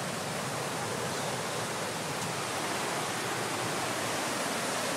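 Steady rush of flowing river water: an even hiss with no breaks.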